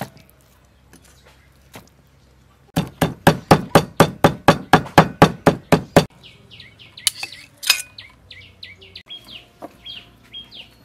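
A cleaver chopping fish on a wooden cutting board: a fast, even run of about five strikes a second, lasting some three seconds. After it stops, birds chirp repeatedly in short falling notes.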